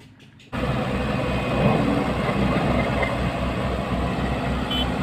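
Diesel engine of a Sakai SV525TF single-drum road roller running steadily with a low, even throb. The sound cuts in abruptly about half a second in.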